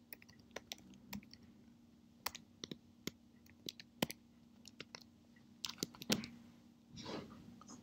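Typing on a computer keyboard: irregular keystroke clicks, a few at a time with short pauses, as a short command is typed and entered.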